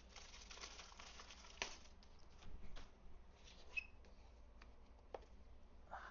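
Near silence: room tone with a few faint, scattered clicks and light taps.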